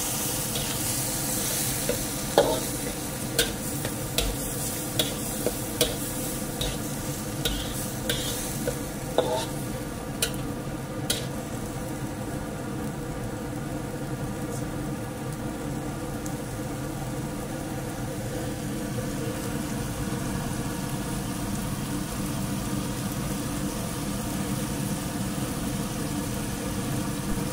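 Chopped banana-stem pith frying in a wok with a little water, sizzling steadily. A metal spatula scrapes and knocks against the wok a number of times during the first ten seconds or so, then only the sizzling goes on.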